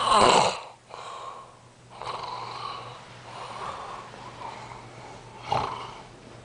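A man snoring: a loud, rough snort right at the start, softer drawn-out breaths, then another short snort about five and a half seconds in.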